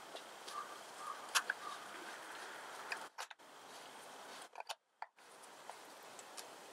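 A few sharp clicks and small knocks from a water bottle being handled as its cap is screwed back on, the sharpest about a second and a half in, over a faint steady hiss. The background cuts out briefly twice in the middle.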